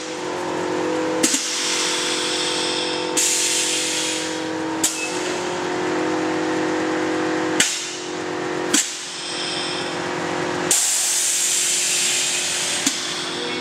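Air-ride suspension on a bagged 1990 Toyota pickup being switched: the air valves hiss in sections of one to three seconds, with a sharp click at each of about seven switches as the bags are filled and dumped. A steady engine hum runs underneath.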